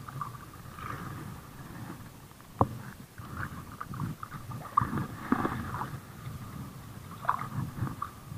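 A hooked barracuda thrashing and splashing at the water's surface as it is brought in, in irregular bunches of splashes. There is a sharp knock about two and a half seconds in.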